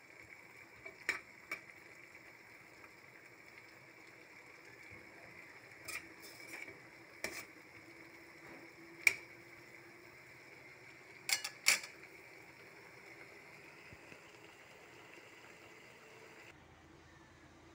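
Pot of mung bean soup simmering, with a metal ladle clinking against the stainless steel pot about eight times, the loudest clink about nine seconds in, over a steady faint hum. The steady background cuts off abruptly about a second before the end.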